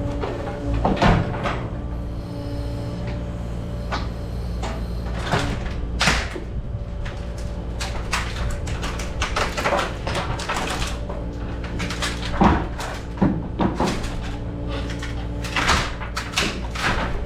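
A heavy machine's engine runs steadily while timber and masonry crack, knock and clatter at irregular intervals as a house is pulled apart in demolition.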